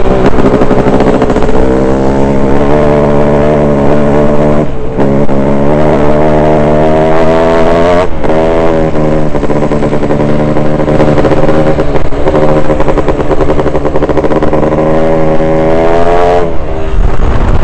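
Dirt bike engine under hard acceleration, loud and close, its pitch climbing and dropping sharply twice, about five and eight seconds in, as it shifts up a gear. It eases off near the end.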